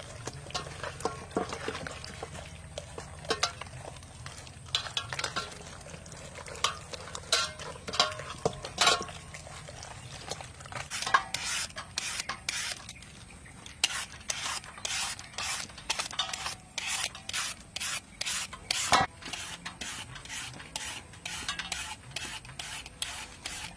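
Hands rubbing and kneading marinade into a whole raw chicken in a stainless steel bowl, in irregular wet rubbing sounds. About halfway through, a julienne peeler starts rasping down a green papaya in quick regular strokes, about two a second.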